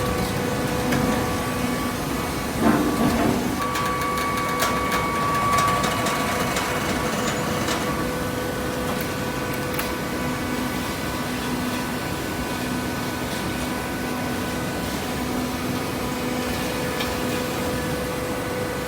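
Hydraulic downstroke baler's motor and pump running with a steady hum, with a short clatter of metal about three seconds in.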